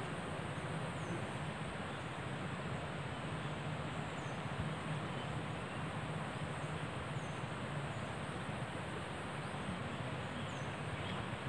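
Steady outdoor background noise with a low hum, and a faint high chirp about every three seconds, four times in all.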